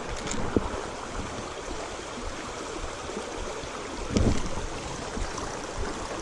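Creek water running steadily, with a soft thump about four seconds in.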